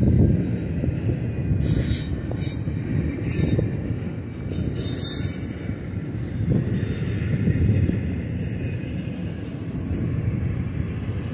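Union Pacific double-stack intermodal well cars rolling past on the track: a steady low rumble of wheels on rail, with several short high hissing sounds in the first five seconds.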